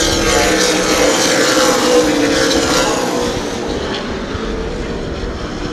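Super late model stock cars' V8 engines running hard as the pack goes by, loudest over the first few seconds and then fading.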